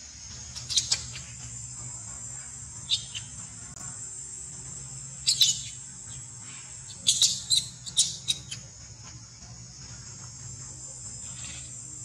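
Steady high-pitched insect drone, with short, sharp high calls on top: one about a second in, another near three seconds, and a quick run of them a little past the middle.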